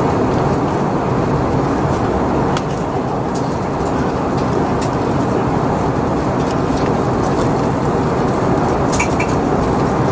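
Steady airliner cabin noise in flight: an even rumble of engines and airflow heard from inside the cabin, with a few faint ticks.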